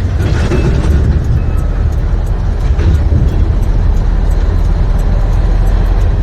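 Semi truck's MaxxForce 13 diesel engine running at a steady low drone inside the cab while the truck rolls slowly, with music playing under it.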